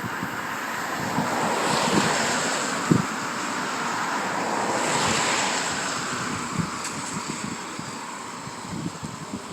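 Sea waves breaking and washing up the beach, swelling twice about three seconds apart and then easing off. Wind rumbles on the microphone, with one sharp bump about three seconds in.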